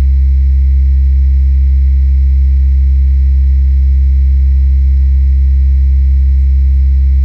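Constant low electrical hum, a steady deep drone with faint higher tones over it, unchanging throughout. The uploader attributes it to the power lines of the local electric grid. Heard through the walls of a safe, with treble cut and bass boosted.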